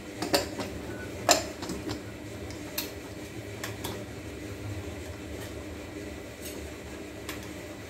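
Aluminium pressure cooker lid being fitted and locked shut, a few sharp metal clicks and knocks, the loudest about a second in, over a steady low hum.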